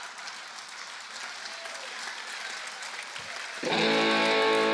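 Audience applauding, then about three and a half seconds in the house band's electric guitar strikes a loud, held chord as a sting.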